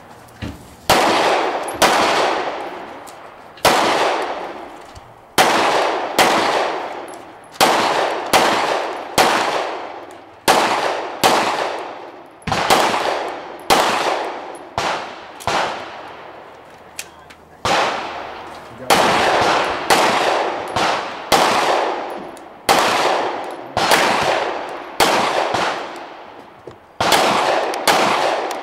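Pistol shots fired one after another, about one a second with a few brief pauses, each followed by a long echoing fade.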